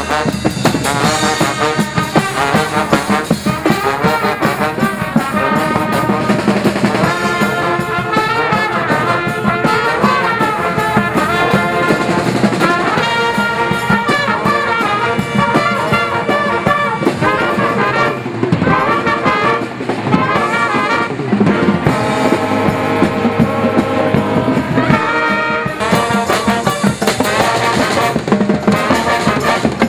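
Music led by brass instruments, trumpets and trombones, playing continuously.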